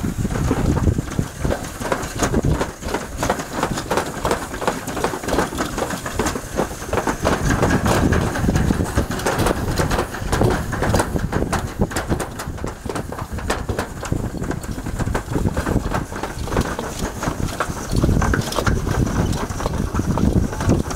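Toboggan sled running down a metal slide chute: a steady rumble with a dense, continuous clatter of the sled rattling along the track.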